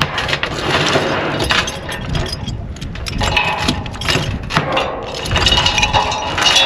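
Electric welding arc crackling and sputtering without a break as a repair weld is run on the skid steer's steel.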